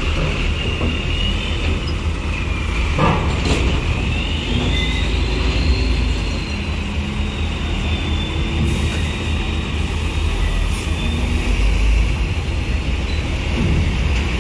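Heavy diesel vehicles rumbling at a ferry's loading ramp, with a high thin squeal that rises and falls. A single clunk about three seconds in.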